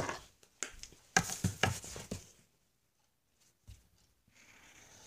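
Handling noise from a phone being picked up and set back in place: a quick run of clicks, knocks and rubbing in the first two seconds, then a single knock. A faint rustling follows near the end.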